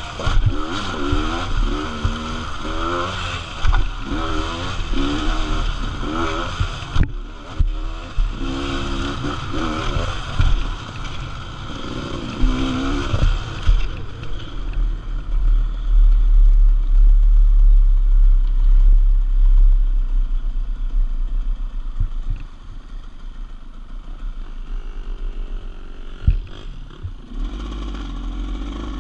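GasGas EC300R 300cc two-stroke enduro engine revving up and down as it pulls along a dirt trail, settling to lower, steadier running for the second half under a heavy low rumble of wind on the microphone. Occasional knocks are heard: the worn, slack drive chain slapping against the kickstand mount.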